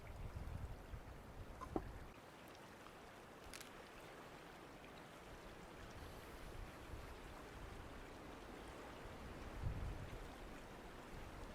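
Steady faint rushing outdoor noise with a few low thuds and one sharp click about two seconds in.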